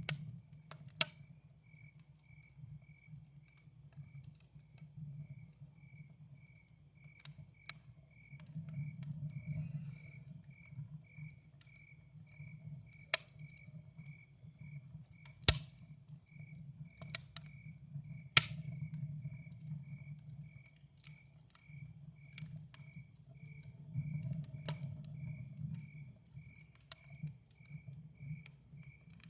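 Campfire crackling with scattered sharp pops, the loudest about halfway through, over a low steady rumble. A cricket chirps steadily underneath, about twice a second.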